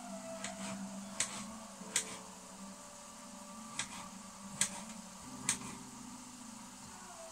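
Kitchen knife chopping potato on a plastic chopping board: about six sharp knocks spaced irregularly, roughly a second apart.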